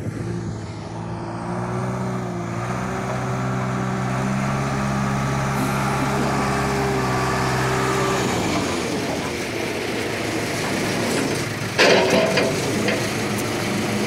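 John Deere backhoe's diesel engine running with a steady note, which breaks up and changes about eight seconds in. A sudden loud noise stands out about twelve seconds in.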